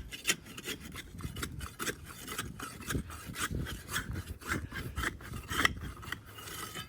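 Ground being dug and scraped out by hand, in irregular rough scraping strokes, a few a second, to open a cavity over a buried spa pipe.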